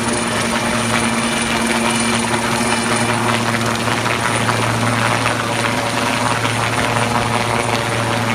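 Helicopter hovering low overhead: a loud, steady rotor and turbine noise with a low drone underneath.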